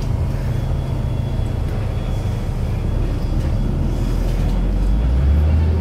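Cabin noise of a Jelcz M121I city bus under way: a steady low diesel engine drone with road rumble. The engine note drops in pitch and grows louder about five seconds in.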